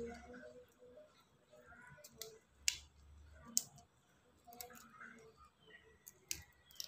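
Faint, scattered clicks and ticks of raw shrimp being peeled by hand, the shells cracking and pulling away.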